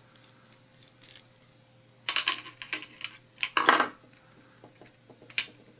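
Small metal clinks and clatter of a tool and lock parts being handled while the screw is taken out of an American Lock 1100 padlock: a few scattered clinks about two to four seconds in, the loudest near four seconds, and one more near the end.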